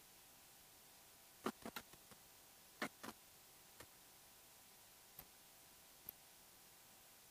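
Sharp little clicks and taps of a paintbrush knocking and working in the wells of a metal watercolour paint tin: a cluster between about one and a half and three seconds in, then a few single ticks, over faint room hiss.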